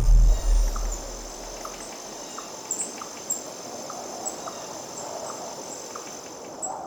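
Outdoor field ambience: a steady high-pitched insect trill with short chirps repeating about once a second. A loud low rumble fills the first two seconds and then fades.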